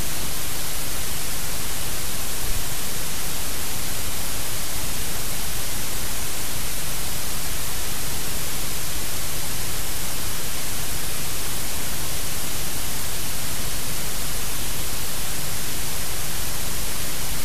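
Loud, steady static hiss spread evenly across all pitches, with a low hum beneath it.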